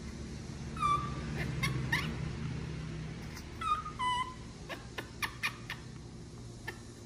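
Baby macaque giving short, high whistled coo calls and squeaks: a few clear coos about a second in and around four seconds, a rising chirp near two seconds, and several brief squeaks after that.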